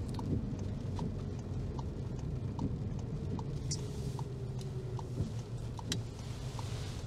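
Car turn-signal indicator ticking steadily inside a Volkswagen's cabin, about one tick every 0.8 seconds, over the low steady rumble of the engine and tyres.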